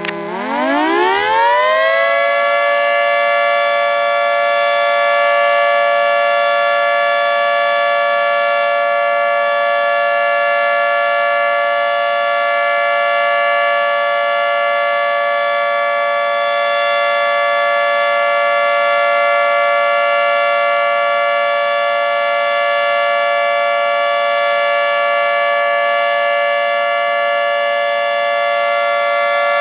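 Federal 3T22 three-tone electromechanical warning siren winding up over about two seconds, then holding a steady chord: the steady alert signal.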